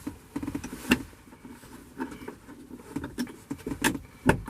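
Plastic dome light lens cover in a 2012 Honda Civic's headliner being handled and pressed back into place: a scatter of sharp plastic clicks and taps over light rustling, loudest near the end with a heavier click and thump.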